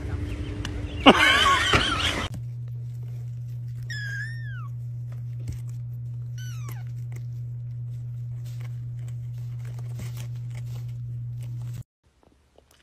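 A loud, sudden noise about a second in, then a kitten mewing twice, each mew high and falling in pitch, over a steady low hum.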